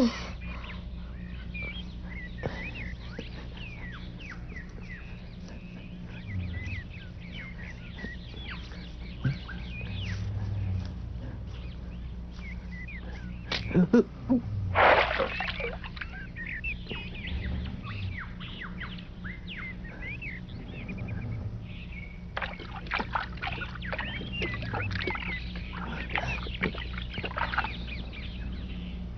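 Forest birdsong ambience: many birds chirping and calling in short bursts throughout. A short, loud noise stands out about halfway through.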